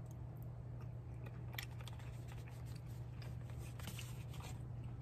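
A person eating: chewing, with scattered light clicks and scrapes of a fork against a paper plate over a steady low hum.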